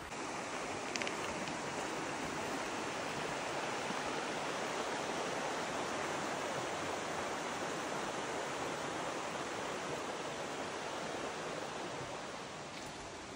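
Mountain stream's water rushing steadily.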